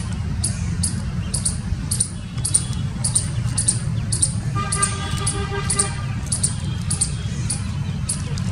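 Palm squirrel calling in a run of sharp, high chips, about two a second, over a steady low rumble. A brief held tone with overtones sounds about midway.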